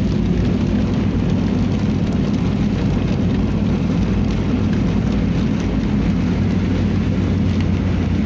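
Steady cabin noise of a car driving in rain: engine and tyre drone on the wet road, with rain hitting the windscreen and body.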